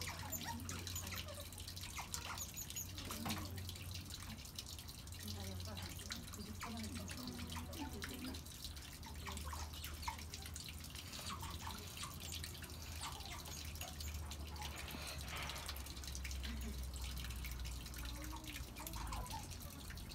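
Water trickling and dripping, with many small scattered clicks over a low steady hum.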